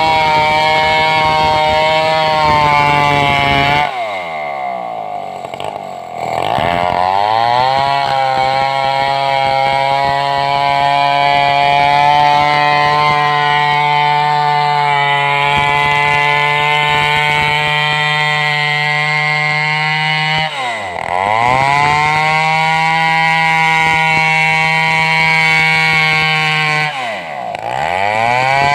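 Stihl 070 two-stroke chainsaw running at high revs, as when sawing a large sengon log. Three times the throttle is let off: the revs fall steeply toward idle and climb back up. This happens once about four seconds in, again past twenty seconds, and briefly near the end.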